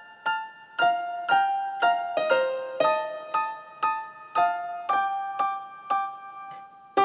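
Opening theme music played on a keyboard: a melody of single piano-like notes, about two a second, each struck and fading away.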